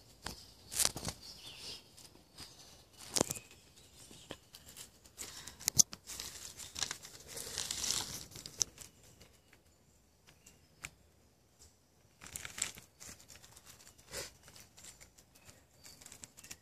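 Short, irregular bursts of rustling and flapping from a trapped bird struggling while it is held and handled, with a quieter pause about two-thirds of the way through.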